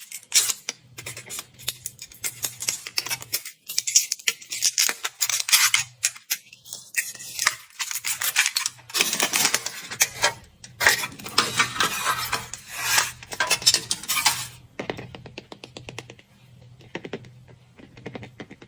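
Foil wrapper of a Kinder Surprise chocolate egg crinkling and tearing as it is unwrapped, in quick rustling bursts that die down to softer handling about fifteen seconds in.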